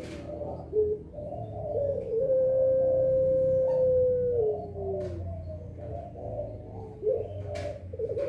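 Puter pelung (ringneck dove) cooing: a few short notes, then one long coo held level for about two seconds that drops in pitch at its end, followed by softer notes. A few sharp clicks sound over it.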